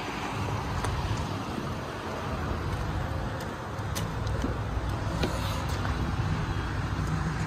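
Driver's door latch of a Ford F-350 Super Duty clicking open about four seconds in as the handle is pulled and the door swings open, over a steady low rumble.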